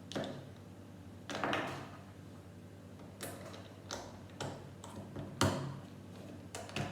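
Plastic Lego bricks clicking and tapping as pieces are handled and pressed together: a scattering of short, sharp clicks, the loudest about five seconds in. A low steady hum runs underneath.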